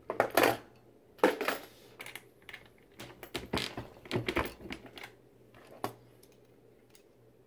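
Brass .223 cartridge cases and a digital caliper with bullet comparator being handled on a workbench: a run of light metallic clicks and clinks, busiest in the first second and a half and again from about three to four and a half seconds in, with a last click near six seconds.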